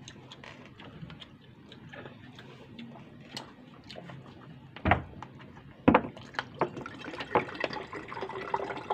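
Water poured from a plastic jug into a glass bottle, starting near the end, after two sharp knocks of the jug being handled about five and six seconds in.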